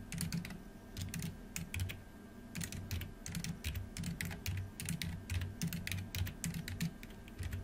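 Computer keyboard typing: irregular key clicks in short runs, over a faint steady low hum.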